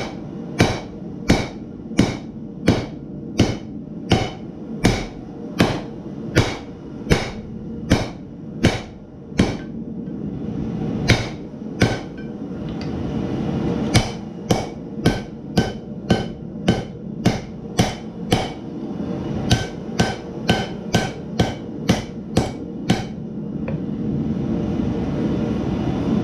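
Hand hammer blows on a glowing Damascus steel billet on an anvil, drawing it out, struck in a steady rhythm of about three blows every two seconds. There is a short break partway through, and the hammering stops a few seconds before the end. A steady rumble runs underneath throughout.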